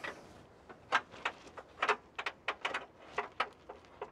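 A run of short, irregular metallic clicks and clinks as hand tools and sockets are worked against metal in the engine bay.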